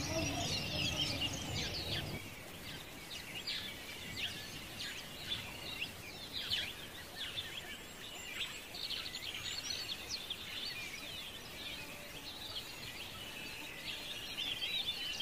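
Many small birds chirping over one another in a dense, continuous chorus. Music underneath stops about two seconds in.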